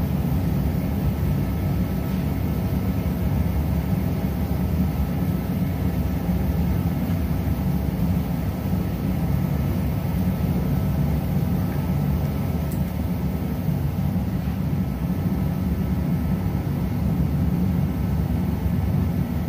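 Steady, even mechanical drone of shop machinery running, mostly low-pitched with faint steady tones above it.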